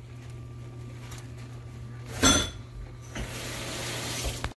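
A single loud clatter of kitchenware against the pan or a dish about two seconds in, over a steady low hum. A soft hiss builds through the last second and a half.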